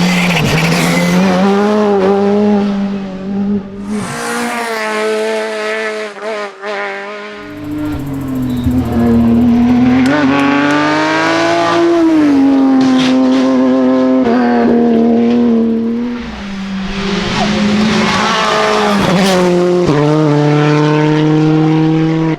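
Rally car engines at hard throttle, one car after another, the engine note climbing and dropping sharply with gear changes and lifts off the throttle.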